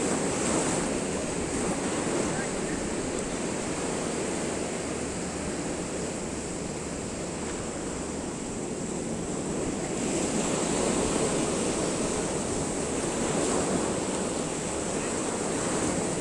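Sea surf breaking and washing up against a concrete-block seawall, a steady rushing wash that eases somewhat in the middle and builds again about two-thirds of the way through. Wind buffets the microphone with a low rumble.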